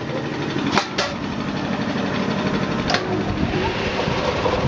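Metal knocks as a perforated steel basket of cut potato strips is set into a centrifuge, then the centrifuge's motor starts and runs with a low hum, spinning the basket.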